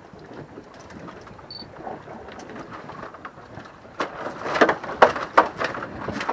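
A quick run of sharp knocks and slaps from a white plastic bucket holding a freshly caught baldchin groper, starting about four seconds in. Under it is steady wind and sea noise.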